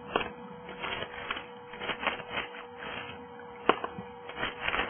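Small hand trowel scraping and knocking against rock as dirt and gravel are dug out of a bedrock crack: irregular scrapes and clicks, with one sharp knock a little before four seconds in.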